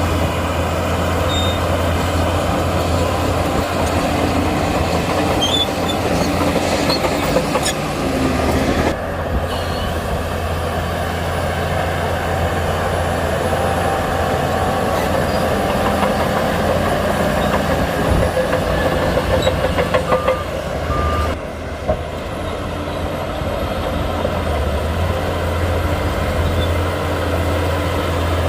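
Shantui crawler bulldozer at work: its heavy diesel engine runs steadily under load, with metallic clanking and rattling from the steel tracks, briefly faster near the end.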